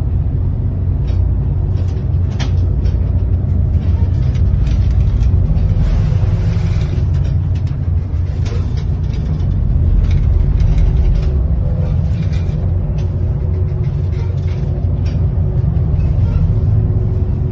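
A loud, steady low rumble with scattered clicks and knocks and a faint steady hum above it.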